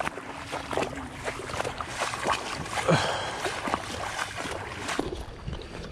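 Wind and water lapping around a small fishing boat, with many small knocks and clicks scattered through it.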